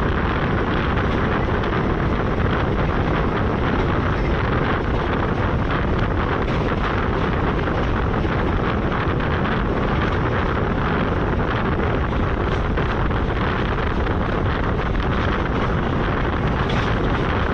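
Steady wind and running noise of an express train moving at speed, with wind buffeting the microphone.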